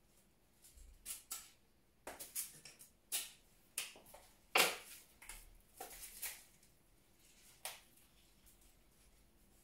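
Flower stems and foliage being handled and pushed into a floral arrangement: irregular rustles and small clicks, busiest in the middle with the loudest about halfway through, then dying away.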